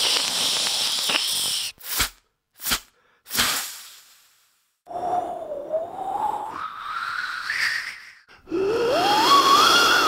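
Mouth-made sound effects by beatboxers: a steady hiss for almost two seconds, three short sharp bursts, then a tone gliding up and down and, near the end, a long rising sweep.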